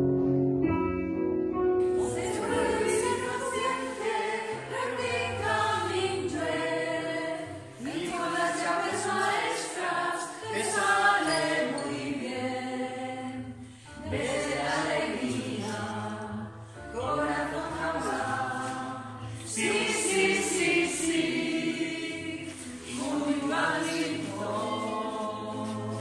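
Music: a choir singing a song in phrases, with short breaks between them. In the first two seconds a plucked string instrument plays alone, then the voices come in.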